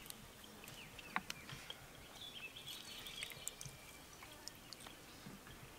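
Quiet outdoor background with a few faint bird chirps, and small ticks and drips as lime juice is squeezed by hand into a bowl. One sharper tick comes just after a second in.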